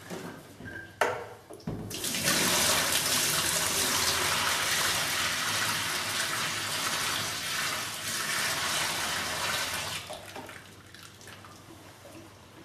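Brown dirty water from a Kärcher Puzzi 100 carpet cleaner's tank poured out into a stainless steel sink. A knock comes about a second in, then a loud, steady gush for about eight seconds, which falls away to quieter trickling and draining in a foamy basin.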